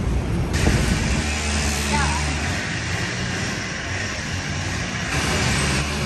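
A road vehicle's engine running close by: a steady low hum with a hiss over it that comes in suddenly about half a second in.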